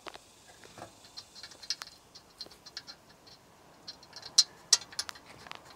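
Small scattered metal clicks and ticks of screws being turned in by hand on a meter base's conduit hub, with two louder taps about three-quarters of the way through.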